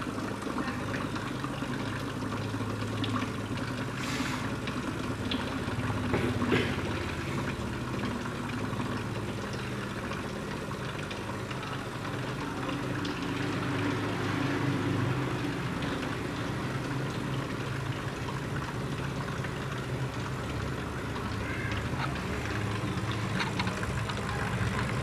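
Small air compressor running with a steady low hum, pumping air through a jar of gasoline to drive the vapour into soapy water. A few faint clicks sound over it.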